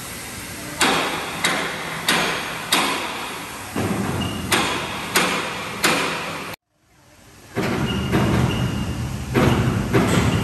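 Sharp metallic bangs, about one every two-thirds of a second, each ringing away, over a steady hum of workshop machinery. The sound drops out briefly about two-thirds of the way through, then returns as steady machine noise with further irregular knocks.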